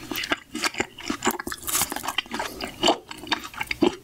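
Close-up chewing of a bitten-off piece of frozen watermelon-style ice pop, with irregular crunches and clicks.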